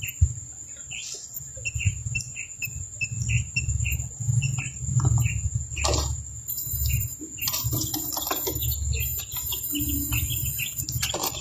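Quails peeping: a quick run of short, high chirps, a few a second, about two seconds in, then scattered chirps. A steady high whine and a low rumble sit underneath.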